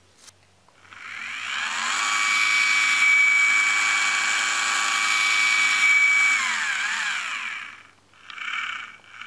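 Celestron Focus Motor whining as it drives the telescope's focuser on a trial run. The pitch rises over about a second, holds steady for several seconds, then falls away and stops, with a couple of short whirs near the end. It turns without stalling.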